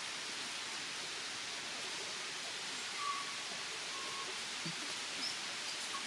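Bush background ambience: a steady, even hiss, with a few faint, short, high bird chirps a little past the middle.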